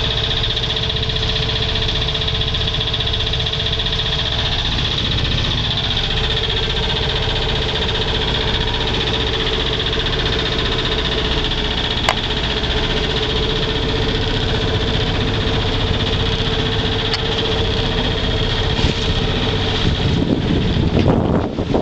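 A yacht's inboard engine running steadily, heard from inside the cabin, with a steady high whine over a low hum. Near the end, gusts of wind buffet the microphone.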